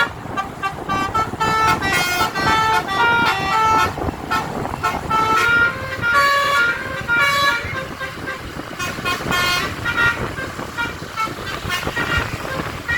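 Basuri musical car horn playing a tune: a string of short horn notes stepping up and down in pitch, one after another.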